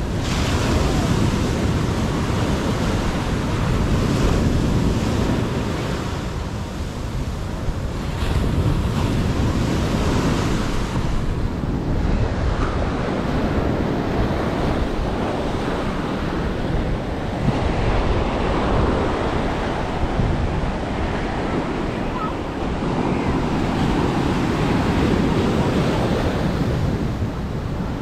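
Ocean surf breaking and washing onto the beach, swelling and easing every few seconds, with wind on the microphone.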